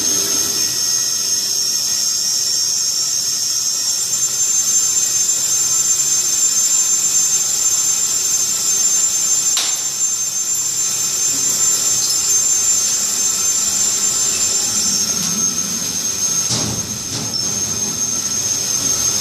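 Loud, steady whine and rush of the cooling and ventilation machinery in an underground LHC detector cavern, several high-pitched tones held over an even hiss of air. Two short knocks sound, one about halfway and one near the end.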